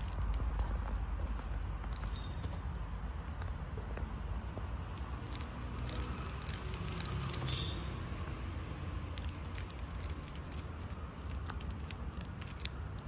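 Loose gravel stones clicking and crunching as a kitten paws at them and rubs its back on them: an irregular run of small quick clicks over a steady low rumble.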